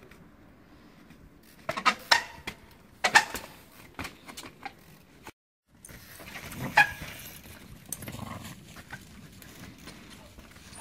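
Trials bike hopping on rock: a series of sharp knocks and clatters from the tyres landing and the chain and brakes rattling, with a brief dropout about five seconds in.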